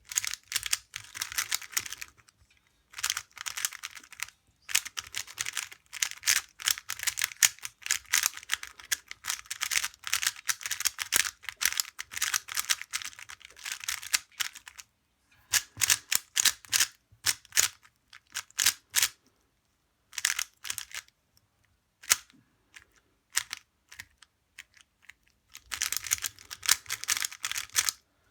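Magnetic 3x3 speedcube being turned fast: quick clacking of the layers in runs of a few seconds, with short silent pauses between them.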